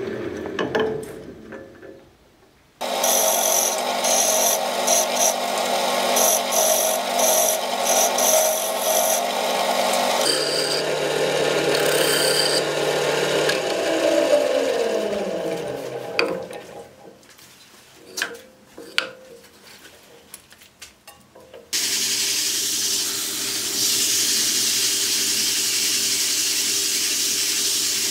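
JET JWL-1443 wood lathe running while wood is worked on the spinning piece. Around the middle it spins down with a falling whine, followed by a quieter stretch of small clicks and knocks. Near the end it runs again with sandpaper rubbing on the spinning wood, a steady hiss.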